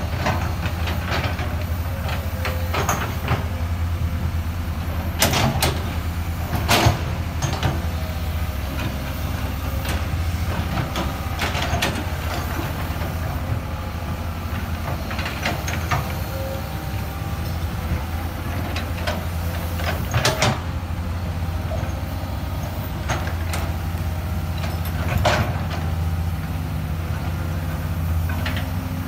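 Excavator's diesel engine running steadily, with sharp metallic knocks and clanks from the machine now and then.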